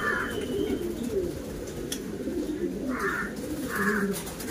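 Lakha fancy pigeons cooing, low wavering coos overlapping without a break, with two short higher sounds about three and four seconds in.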